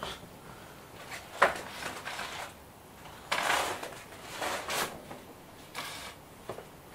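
Intermittent handling noises: a sharp click about a second and a half in, then several short rustling scrapes.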